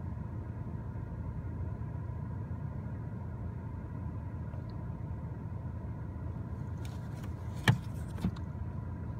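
BMW E90 320i's four-cylinder petrol engine idling steadily just under 1,000 rpm, heard from inside the cabin. A sharp click comes about three-quarters of the way through, and a softer one half a second later.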